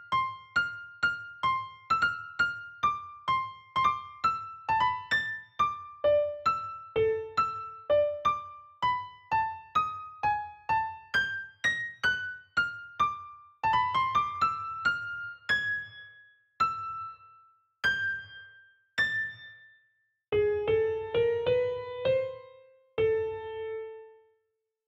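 Background music: single piano notes from a phone piano app, tapped out at random, about two a second, then sparser, with a quick flurry of notes near the end and a last note ringing out.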